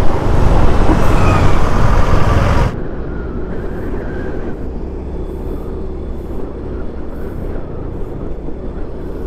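Motorcycle riding noise from a handlebar-mounted action camera: wind buffeting on the microphone over engine and road noise. About three seconds in it drops suddenly to a quieter, steady rush.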